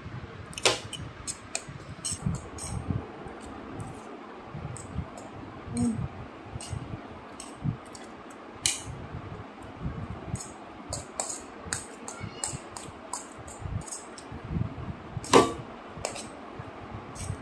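A metal fork clicking and scraping against a plate while noodles are eaten: irregular sharp clicks, the loudest about a second in and near the end, over soft dull handling bumps.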